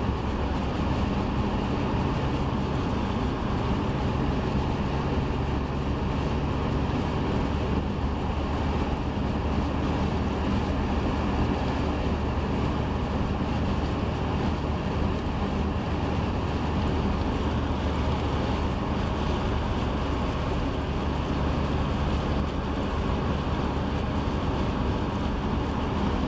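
Steady road noise of a car driving on a snow-covered highway in a blizzard: a constant low rumble of tyres and engine with a faint steady hum, mixed with wind noise.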